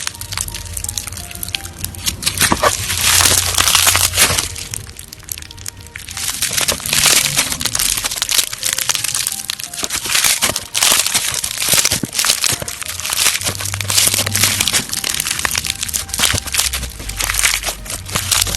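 Slime being squeezed and pressed by hand, making dense crackling and popping in waves that swell and fade every few seconds, over background music with a low bass line.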